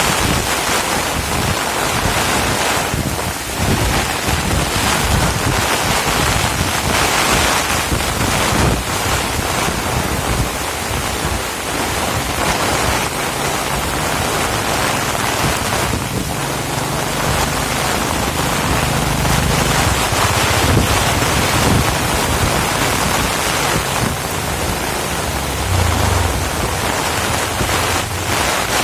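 Heavy rain falling in strong wind, with wind buffeting the microphone in low rumbling gusts.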